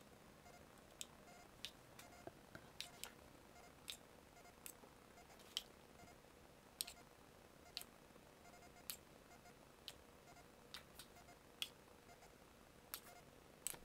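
Faint, irregular clicks and taps of a metal spoon against a stainless steel saucepan and a metal donut pan as thick batter is spooned into the moulds, a little more than one click a second, over near silence.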